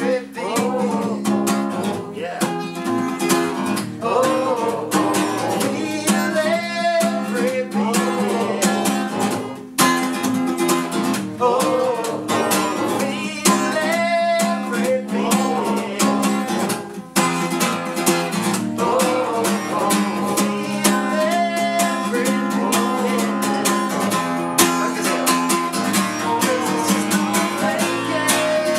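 Acoustic guitar strummed in a steady rhythm, with a man singing a melody over it.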